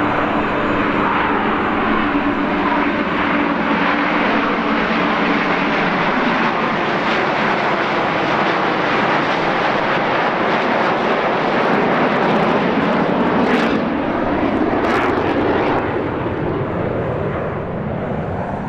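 Jet engines of a close formation of Frecce Tricolori Aermacchi MB-339 jets flying by overhead: a steady, loud rushing jet noise that eases off slightly near the end.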